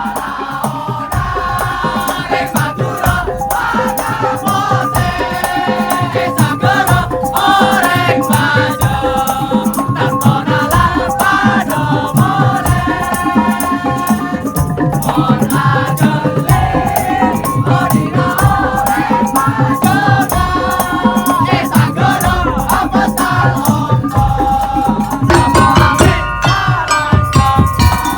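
Madurese tongtong ensemble music: a dense, fast beat of percussion with rattling strokes under a wavering, bending melody line and a low pulsing bass.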